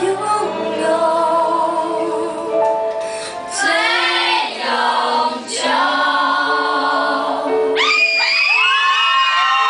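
A woman singing a Mandarin pop ballad live into a microphone over accompanying music. About 8 s in, high, arching whoops from the audience come in over the song.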